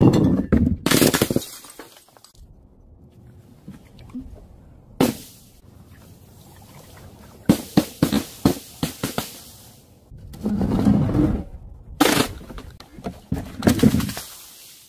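Glass bottles clattering and smashing, then a run of sharp smacks and wet splats as balls and balloons land in paint on paving stones, with quiet gaps between the drops.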